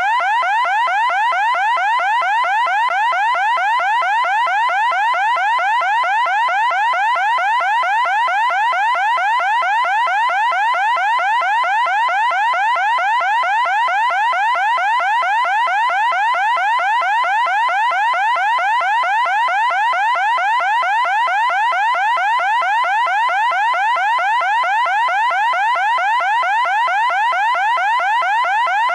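Loud electronic siren sounding without pause: the same quick rising whoop repeated several times a second, its pitch and level unchanging.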